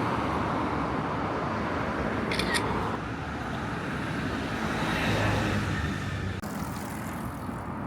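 Outdoor street ambience with traffic noise, the background changing abruptly about three and six and a half seconds in; a quick double click about two and a half seconds in.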